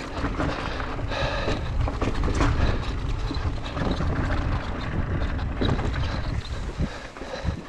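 Specialized Turbo Levo electric mountain bike rolling down a rough, stony dirt singletrack: a steady rumble of tyres over the ground, with scattered knocks and rattles from the bike, mixed with wind buffeting the microphone.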